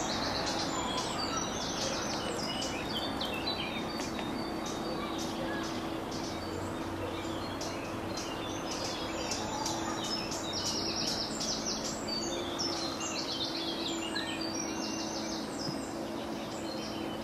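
Songbirds singing in a spring chorus: rapid, high-pitched repeated notes and trills from several birds throughout, over a steady low hum and background noise.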